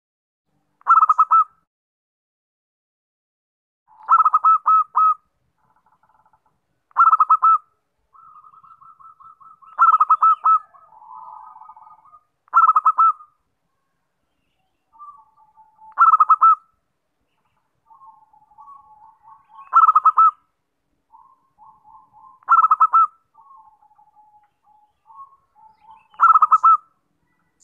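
Zebra dove (perkutut) cooing: nine loud bursts of rapid staccato coos, one about every three seconds, with softer trilling coos between them from about a third of the way in.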